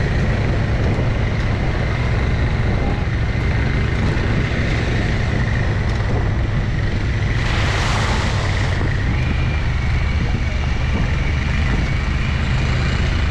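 Off-road vehicle engine running steadily under way on a dirt trail, heard from on board, with a low drone and a steady high whine. A brief hiss about seven and a half seconds in.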